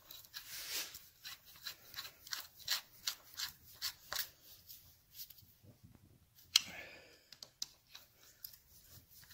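Hand screwdriver turning Phillips screws into a Triumph motorcycle's aluminium gearbox outer cover: a run of short clicks and scrapes, a few a second, with one sharper click about two-thirds of the way through.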